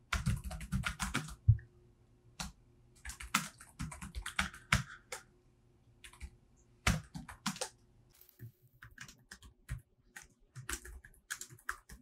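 Typing on a laptop keyboard in quick runs of keystrokes with short pauses between them.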